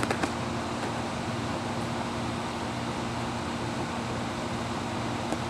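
Steady background hum with an even hiss, unchanging throughout, in the manner of running outdoor machinery.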